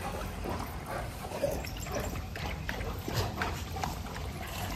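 Several dogs lapping and eating a milk breakfast of soaked soybean balls from steel bowls: a scatter of small wet laps and clicks.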